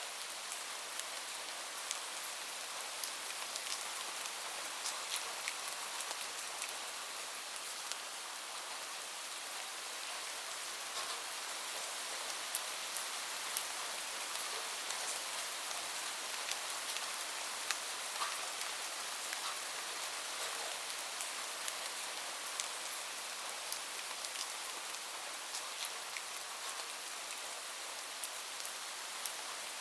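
Steady rain falling on a surface: an even hiss with many individual drops ticking sharply throughout.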